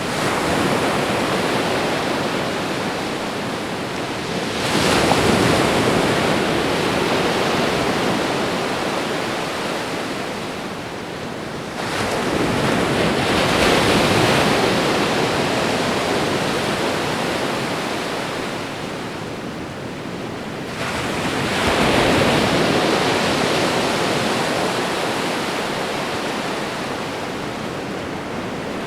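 Ocean waves washing onto a shore: a constant hiss of surf that swells three times as waves break, each rush fading away before the next, about seven to nine seconds apart.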